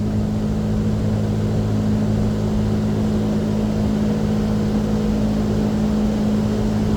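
AAON rooftop HVAC unit running, a steady machine hum with a low drone from its single Copeland digital scroll compressor in cooling.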